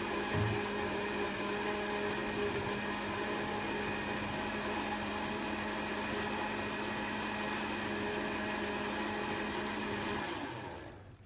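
An electric kitchen appliance motor running with a steady hum, then winding down and stopping about ten seconds in.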